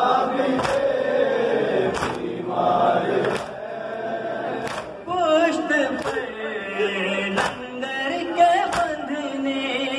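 Noha recited by a male lead voice on a microphone, with a chorus of men chanting the refrain. A sharp slap comes in unison about every one and a half seconds, in time with the chant, typical of the mourners' chest-beating (matam). About halfway through, the lead voice sings alone in wavering, ornamented lines.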